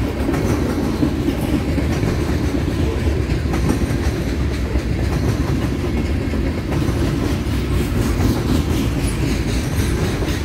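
Freight train cars rolling past at close range: a steady low rumble of steel wheels on rail, with a continuing clickety-clack of wheel sets crossing rail joints.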